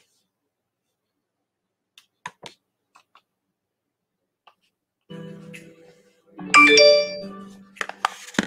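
Near silence with a few faint clicks, then background music starting about five seconds in; its loudest moment is a bright ringing chord about a second and a half later.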